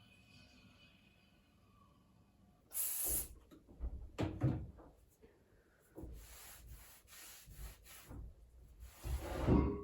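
Household cleaning sounds: several knocks and bumps, with stretches of rubbing or scrubbing. The loudest bump comes near the end.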